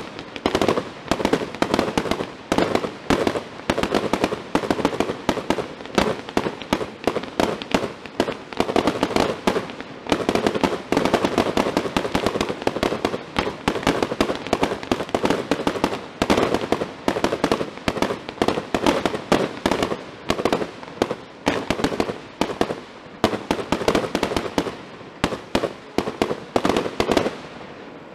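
Aerial fireworks shells bursting in rapid, dense succession, many bangs a second, dying down near the end.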